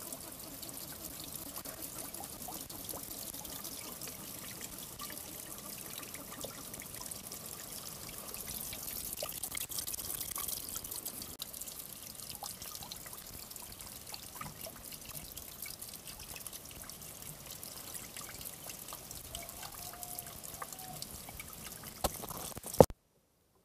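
Diesel fuel dribbling and spattering from a loosened fuel line onto the ground and into a bucket while the tractor's fuel system is bled of air. Near the end there is a sharp knock, then the sound cuts out.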